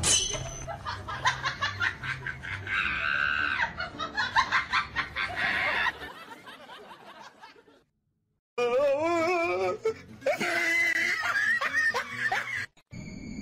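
People laughing hard for about six seconds in quick repeated bursts. After a short silence, a different wavering, pitched vocal sound follows.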